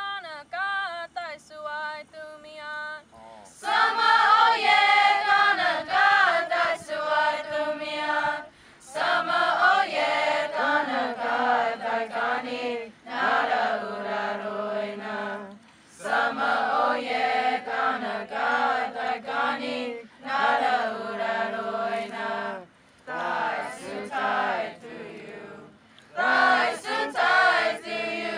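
Youth choir singing a Comanche hymn unaccompanied. A single voice carries the opening line, then the full choir joins about three and a half seconds in and sings on in phrases broken by short breath pauses.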